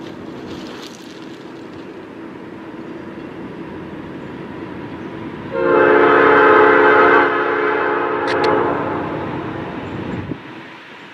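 A Pan Am Railways GE B40-8 diesel locomotive's multi-chime air horn sounds one long blast about halfway in, loudest at the start, then fading over about four seconds before cutting off near the end. Before the horn, the locomotive's steady rumble as it approaches.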